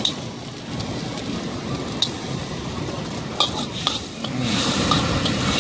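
An egg frying in oil in a steel wok, sizzling steadily, while a metal spatula scrapes and taps against the wok a few times, about two seconds in and again between three and four seconds in.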